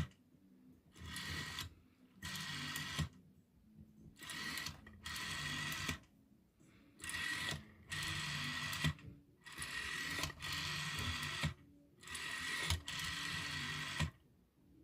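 Rotary telephone dial being dialled digit after digit: the finger wheel is wound round with a few clicks, then whirs back under its spring each time. There are about ten return whirs, each half a second to a second long.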